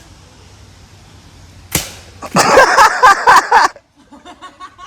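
A water bottle thrown down a steep slope: a sharp smack as it lands, then a quick run of loud knocks and clatters for over a second as it bounces and tumbles away down the hill.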